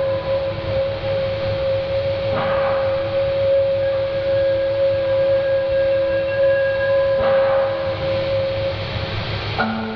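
Dark ambient drone music: one steady held tone over a bed of hiss and low rumble, with two brief noisy swells. Near the end the held tone drops away and a lower one takes over.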